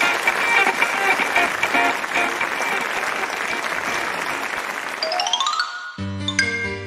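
Applause with show music over it, ending in a quick rising run of notes; about six seconds in, light keyboard music begins.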